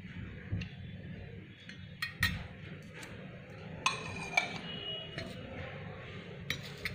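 A steel spoon clinking against a stainless steel bowl and a glass plate as boiled peanuts are spooned out: several separate clinks, a few with a brief metallic ring.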